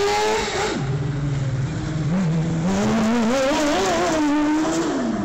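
Shortcar race car's motorcycle engine revving as the car drives the course. Its pitch drops sharply about a second in, climbs in steps, then falls again near the end.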